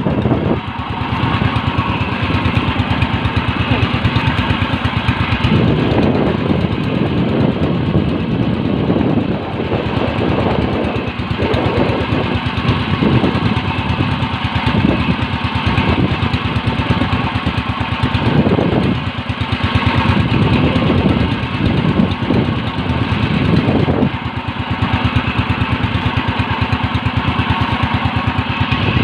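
Small engine of a motorized outrigger fishing boat running steadily at low speed, with a continuous rapid firing pulse. Swells of wind and wave noise rise over it now and then.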